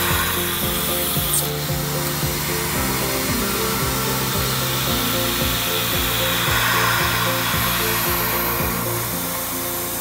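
Background music with a steady beat, over the hiss of a face mill cutting aluminium plate on a Tormach PCNC 770 CNC mill.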